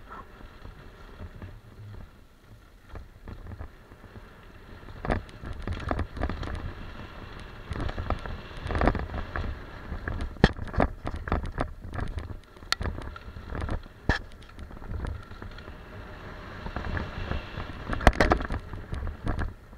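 Mountain bike descending a rough dirt trail at speed: tyres rumbling and crunching over dirt and loose rocks, with frequent sharp clacks and rattles as the bike hits bumps, getting busier and louder about five seconds in. Wind rumbling on the microphone underneath.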